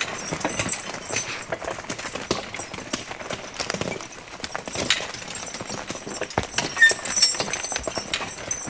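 Draft horses walking, hooves clopping unevenly with frequent sharp knocks.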